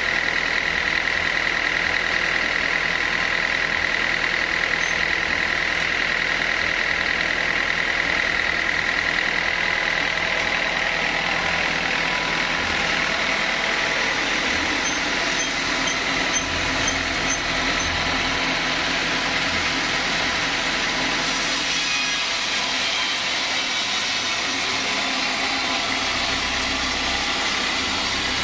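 Sawmill saw running on teak logs: a steady mechanical drone with a high whine through the first half, and a brighter, hissier sound from about two-thirds of the way in.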